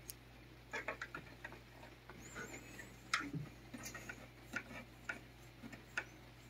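A back scratcher with a green plastic head scratching a cat's head and chin: faint, irregularly spaced clicks and light scrapes.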